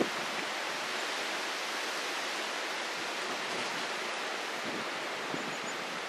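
Steady, even outdoor hiss with no distinct event; no bee buzz or birdsong stands out.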